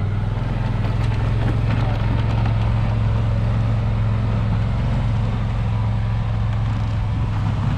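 Polaris RZR side-by-side's engine running at a steady speed, a constant low hum with no revving, as it pushes snow with its plough blade.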